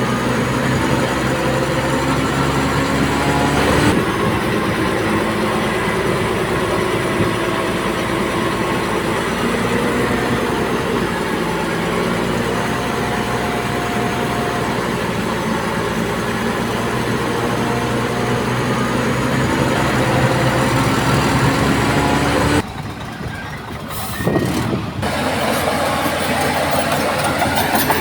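Diesel engines of heavy earth-moving machinery (bulldozer and dump truck) running steadily with a low drone and shifting engine tones. About twenty-three seconds in the sound drops away abruptly, then picks up again a couple of seconds later.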